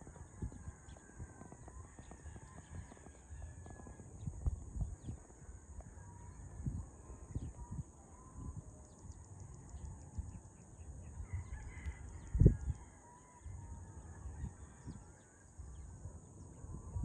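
Roosters crowing, with low rumbling thumps of wind on the microphone and one sharper thump about twelve seconds in, over a steady high hiss.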